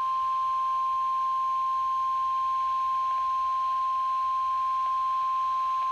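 NOAA Weather Radio 1050 Hz warning alarm tone: one long, steady, loud single-pitch beep. It is the signal that a National Weather Service warning is about to be broadcast.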